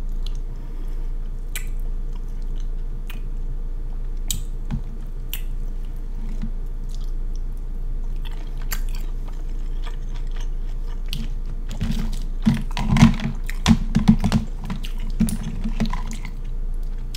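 Close-miked mukbang chewing and mouth smacking while eating seafood boil shrimp, with scattered wet clicks. It gets louder and more rapid about twelve seconds in for a few seconds, over a steady electrical hum.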